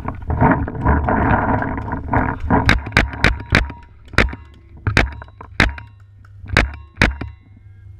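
Paintball markers firing: about ten sharp pops at uneven spacing, starting about two and a half seconds in, after a stretch of rushing noise on the microphone.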